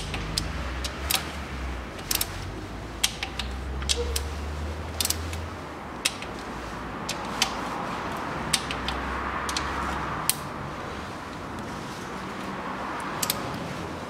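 Sharp metallic clicks, one at a time and irregularly spaced, from a torque wrench tightening the valve cover bolts to 10 N·m.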